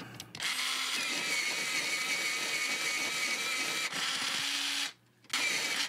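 Office World electric pencil sharpener's motor running as it sharpens a coloured pencil. It runs steadily for about four and a half seconds, stops, then starts again shortly before the end.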